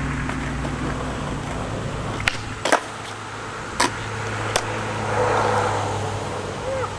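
Skateboard wheels rolling on asphalt, with a few sharp wooden clacks in the middle as the tail pops and the board lands a flip trick. The rolling grows louder near the end as the board passes close.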